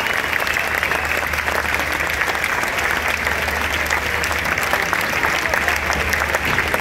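Large crowd applauding, a dense steady clatter of many hands clapping, with some voices in the crowd.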